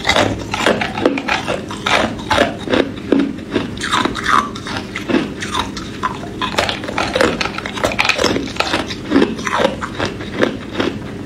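Hard ice cubes being bitten and crunched between the teeth: a steady run of sharp cracking crunches, a few a second.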